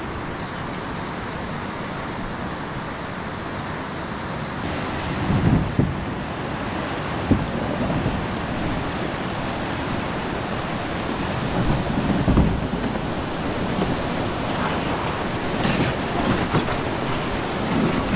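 Fast river rapids rushing over rock, a steady roar of white water, with a few low gusts of wind on the microphone and a short knock about seven seconds in.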